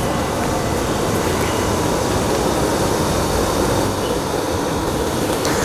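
Steady rumbling of a high gas flame under a kadhai of boiling sugar syrup.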